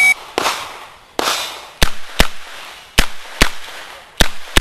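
Tail of a shot timer's start beep, then six revolver shots from a stock Taurus M86, fired in three quick pairs.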